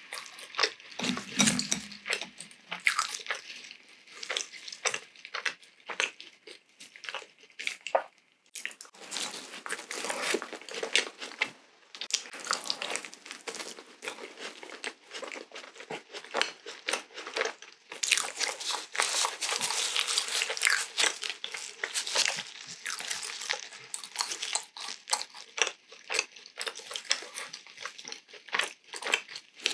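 Close-miked mouth sounds of a person biting and chewing a soft glazed Krispy Kreme donut dipped in Nutella and yogurt: many quick wet, sticky smacks and clicks, with busier bursts of chewing after each bite.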